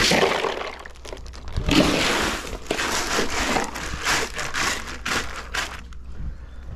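A plastic bag of ice crinkling and rustling as it is handled and pressed down into a plastic ice chest, the ice shifting inside the bag; the handling sounds die away about six seconds in.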